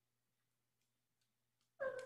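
A cat's meow begins near the end: one loud, drawn-out pitched call after a near-quiet stretch.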